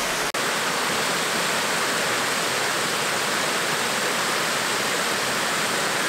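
Shallow waterfall cascading over stepped sandstone ledges: a steady, even rush of water.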